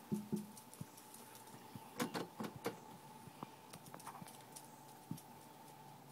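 Cat pawing at a glass door: scattered light taps and rattles, a cluster at the start and another about two seconds in, over a faint steady hum.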